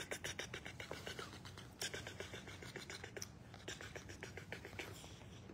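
Spider monkeys making a soft, rapid clicking chatter close to the microphone, several clicks a second, growing sparser and quieter toward the end.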